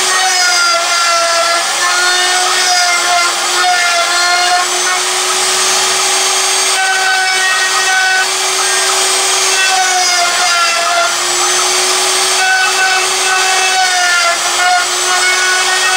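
Pilot Pro CNC router running steadily, its spindle whining as a V-bit carves letters into plywood. The pitch wavers slightly up and down as the cut goes on.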